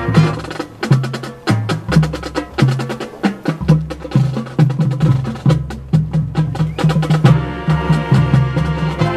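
Marching band playing a percussion-led passage: fast, sharp drum and block-like strikes over a moving line of low notes. The sustained wind chords drop out at the start and come back in near the end.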